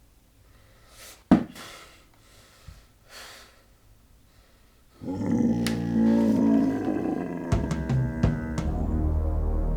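Horror film sound design: a sharp hit about a second in, then, from about five seconds, a loud creature roar layered with dramatic music, followed by deep drum hits near the end.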